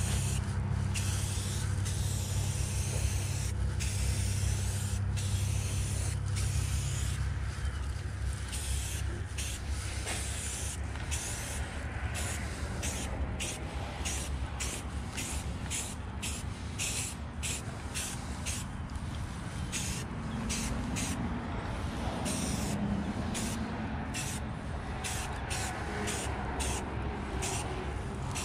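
Aerosol spray paint can hissing in many short bursts, the nozzle pressed and released again and again, as paint goes onto a carved wooden bear. A steady low hum runs underneath.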